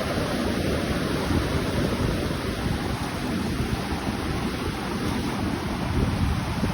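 Ocean surf: waves breaking and washing in a steady rush with a low rumble, and wind buffeting the microphone.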